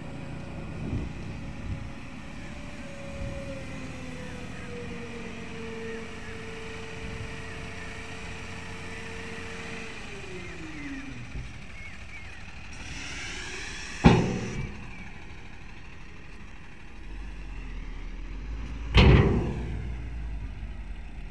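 Diesel tipper truck's engine running under load while its bed is raised to tip a load of soil; the engine's tone holds steady, then falls away about halfway through. A hiss ends in a sharp bang about two-thirds of the way in, and a heavy thud follows near the end.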